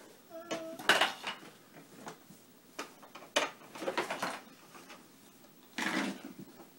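Scattered light clicks, knocks and clatter of a plastic toy kitchen and play dishes being handled, with a brief pitched sound about half a second in and a louder clatter near the end.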